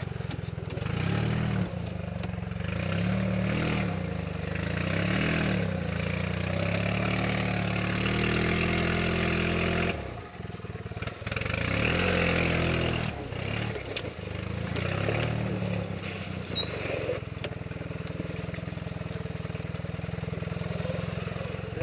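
Gas E-Z-GO golf cart's engine running as the cart crawls along a muddy, rocky trail, its pitch rising and falling; it drops away briefly about ten seconds in, then picks up again.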